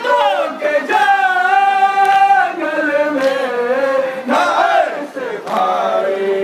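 A male voice chants a noha, a Muharram lament, through a microphone in long held, gliding notes over a crowd. Sharp slaps come roughly once a second, keeping the beat.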